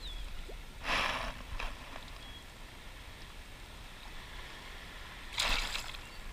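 Water splashing as a small schoolie striped bass is released by hand in shallow water. There is one splash about a second in and a bigger one near the end as the fish kicks away.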